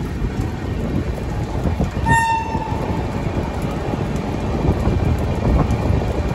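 A moving express train's coach running on the track, a steady rumble and rattle heard from the open coach door. About two seconds in, a short single horn blast lasts under a second.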